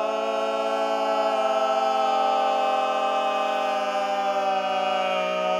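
A cappella mixed vocal quartet holding one long chord in close harmony.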